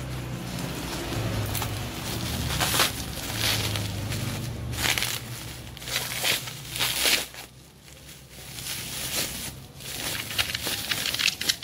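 Plastic parcel wrapping and bubble wrap crinkling and rustling as a package is unwrapped by hand, in uneven rustles with a short lull about eight seconds in.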